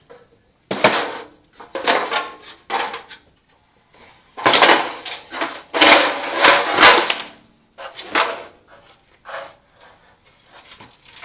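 Metal parts of a furnace blower being handled and knocked about on a workbench: a series of separate knocks and clatters, with a longer, denser run of clattering around the middle.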